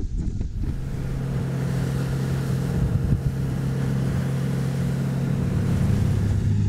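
Suzuki DF 350A V6 outboard pushing a planing motorboat: a steady low engine drone over the rush of water and wind, settling in about half a second in.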